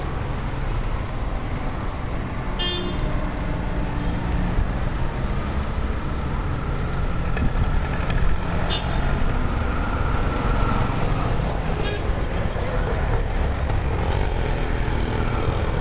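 Busy road traffic with engines running steadily and a few short horn toots.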